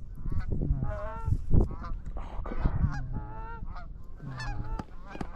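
Many overlapping Canada goose honks and clucks from a flock coming in to the decoys.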